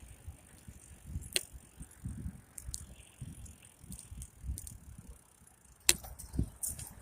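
Bicycle being ridden, with regular low bumps and rattles about twice a second. Sharp clicks come about a second and a half in, and a louder one near six seconds.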